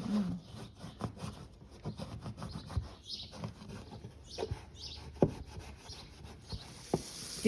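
Rubbing and scraping handling noise with many light clicks and a few sharper knocks in the second half, as of hands working sealing tape along a floor air duct.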